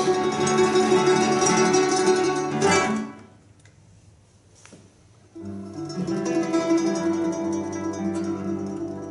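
Classical guitar, mandolin and bowed double bass playing together. The music breaks off about three seconds in for a pause of roughly two seconds, then comes back in suddenly with held notes.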